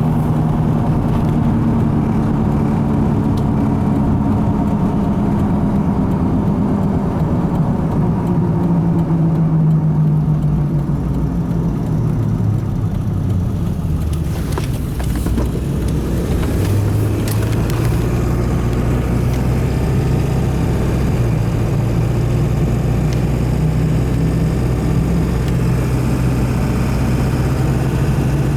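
The 7.3 Powerstroke turbo-diesel of a straight-piped 2002 Ford F250 running as the truck is driven, heard from inside the cab with tyre and road noise. The engine note falls over the first dozen seconds, then steps up to a new steady note about seventeen seconds in.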